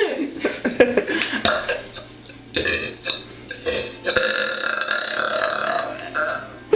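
A woman burping on purpose, over and over: a run of short, pitch-sliding burps in the first second, another brief one about two and a half seconds in, then one long drawn-out burp of about two seconds near the end.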